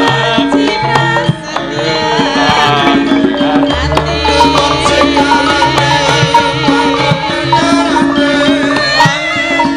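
Javanese gamelan music with hand-drum strokes and a sung vocal line with heavy vibrato, amplified through microphones. A low steady hum joins about four seconds in.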